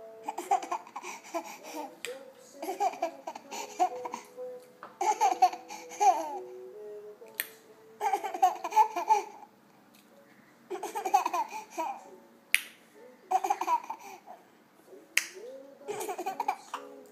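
A baby giggling in short bursts of laughter, about seven in a row a second or two apart, with a few sharp clicks in between.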